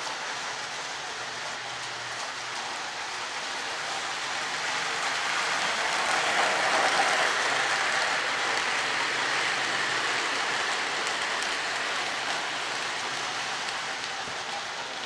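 Lionel O-gauge model train: the metal wheels of a diesel locomotive and loaded coal hopper cars rolling on the track with a steady hissing rumble, which swells to its loudest about halfway through as the cars pass close by and then fades a little.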